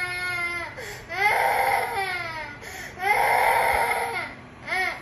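A young child crying: three long wailing cries, each held for a second or more and some sliding down in pitch, then a short cry near the end.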